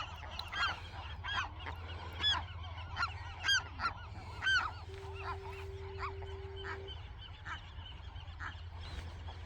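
Gulls calling at a nesting colony, most likely western gulls: a string of short, arched calls about one a second, louder in the first half and fainter later, over a steady low hum. A faint steady tone sounds for about two seconds around the middle.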